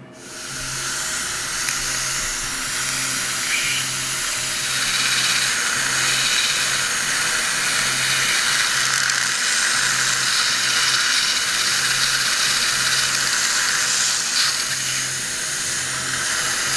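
Dental implant drill with a depth stop, in a contra-angle handpiece, running steadily as it cuts the implant site in the jawbone. A surgical suction hisses along with it.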